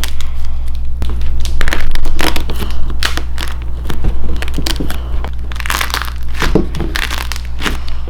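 Dried lightweight foam clay, shaped like an ice cream, crushed in the hands: an uneven run of crackles and crinkles, called weak.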